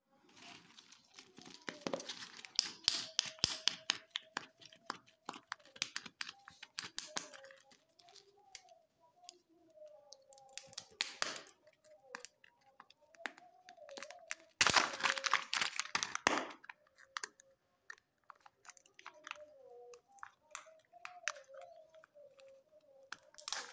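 A plastic-wrapped Fun & Joy chocolate egg crinkling and crackling in the fingers as its wrapper is torn and its foil lid peeled back. The crackles come in irregular bursts, with the loudest run about fifteen seconds in.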